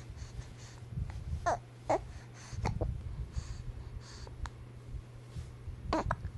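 A baby hiccuping: short squeaky hics, a pair about a second and a half in, another near three seconds and one near the end.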